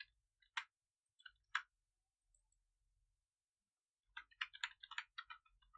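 Two single computer keyboard or mouse clicks about a second apart, then a quick run of keystrokes starting about four seconds in as a word is typed.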